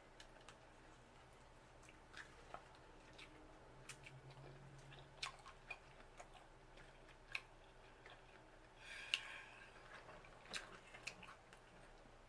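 Faint chewing and wet mouth sounds of someone eating lobster meat, with scattered soft clicks and smacks and a slightly louder smack about nine seconds in.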